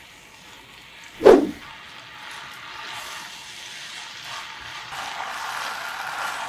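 A single sharp knock, then a steady hiss that slowly grows louder.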